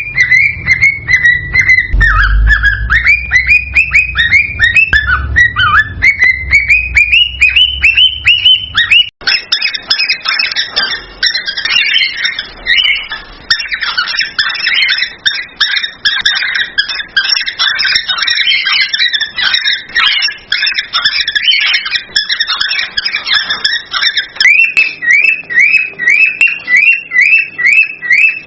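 Cockatiels whistling and chattering: a male's excited courtship song of rapid, repeated whistle notes that dip and rise in pitch. About a third of the way in it changes abruptly to a dense chatter of many overlapping chirps, and near the end the rapid repeated whistles come back.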